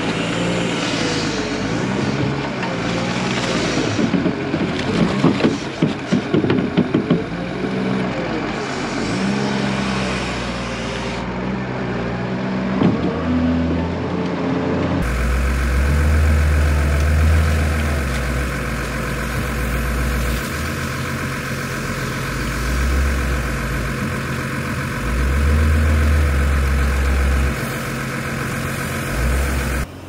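Wheel loader's diesel engine working, its pitch rising and falling as it revs while scooping and lifting manure. About halfway through the sound changes abruptly to a steadier engine drone with low rumbling gusts of wind on the microphone.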